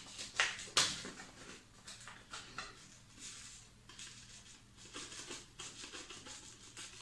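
Paper seed packet being torn open and handled: a couple of sharp paper crackles in the first second, then lighter, scattered rustling as the packet is tipped to shake the seeds out.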